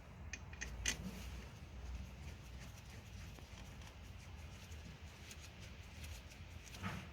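Metal clinks and clicks of hand tools and brake hardware being handled: a few sharp clicks in the first second, the loudest just under a second in, and another near the end, over a low steady hum.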